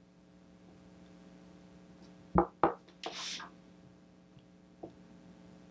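Small metal parts of an opened, grease-packed guitar tuner being handled: two sharp clicks a quarter second apart a little past halfway, then a brief breathy hiss and one faint click later, over a low steady hum.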